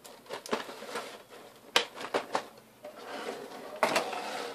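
Clear plastic blister trays being handled and moved: irregular crackles and sharp clicks of thin, stiff plastic.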